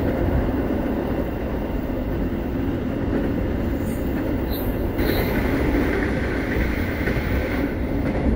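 Running noise of a moving Indonesian passenger train heard from inside an executive-class coach: a steady rumble of wheels on rails, turning brighter and hissier about five seconds in.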